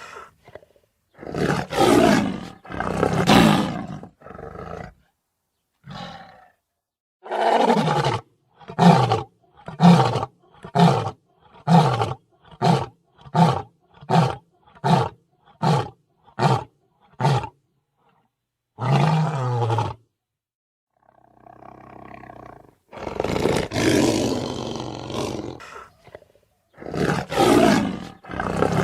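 Lion roaring bout. First a few long roars, then a run of about a dozen short grunting roars, a little over one a second, that grow shorter as the series goes on. After a brief pause, more long roars follow.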